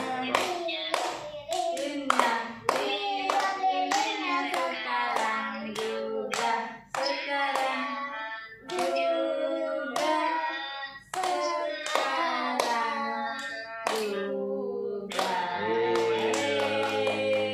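Family singing a birthday song together, a young girl's voice among them, while clapping along in time, about two claps a second. About three seconds before the end the singing and clapping stop for about a second, then the singing starts again.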